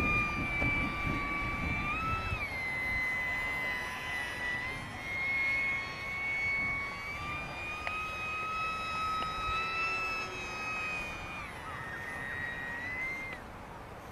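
Electric motor and propeller of an OMP Hobby S720 micro RC plane in flight: a steady whine that rises and falls in pitch with the throttle, dropping and cutting off near the end. Wind buffets the microphone in the first couple of seconds.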